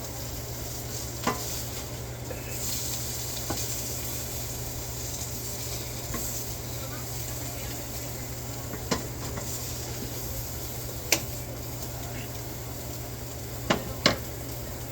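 Birria tacos frying in a hot pan, sizzling steadily over a low hum. A few sharp clicks of a utensil against the pan come through, two of them near the end.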